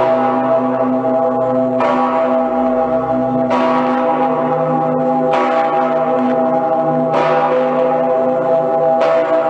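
Cologne Cathedral's huge St. Peter's Bell (Petersglocke) swinging and ringing alone. The clapper strikes five times, about every two seconds, each stroke sounding over a long, continuous ringing hum.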